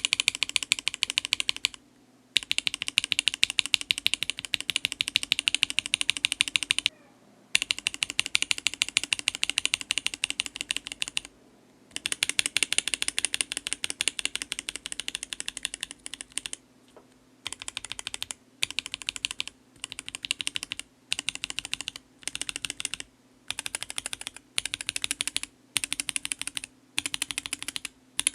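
Mechanical keyboard (Kbd67 Lite with a polycarbonate plate, PBT keycaps and Akko CS switches) typed on quickly in a sound test. There are long runs of fast keystrokes broken by brief pauses at first, then shorter bursts of about a second each with short gaps.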